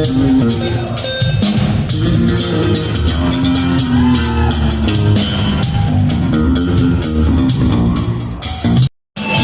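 Live rock band playing an instrumental passage with drum kit, bass and guitar under a held melody line. The music cuts off abruptly near the end and comes back with strummed guitar.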